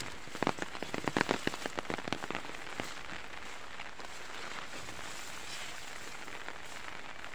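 Tall, wet grass rustling and crackling as someone pushes through it on foot, dense for the first few seconds, then fading to a steady soft hiss.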